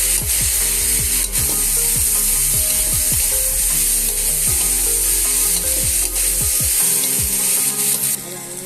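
Potatoes, beans and spices frying in a pan with a steady sizzle, while a spatula stirs and scrapes through them in repeated strokes. The sizzling and stirring drop off near the end.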